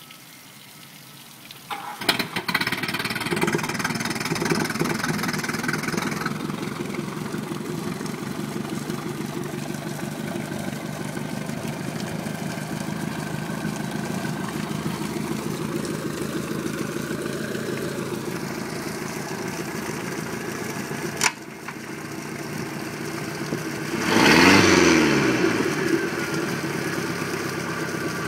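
MerCruiser 3.0L four-cylinder sterndrive engine starting about two seconds in and settling into a steady idle. About three-quarters through there is a sharp click with a brief dip in the engine sound. Near the end a quick rev rises and falls back to idle.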